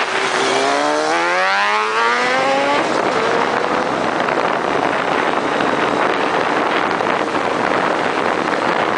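Kawasaki ZX-12R's inline-four engine accelerating hard, its pitch rising steeply for about two seconds as the bike pulls away, then giving way to a steady rush of wind on the microphone.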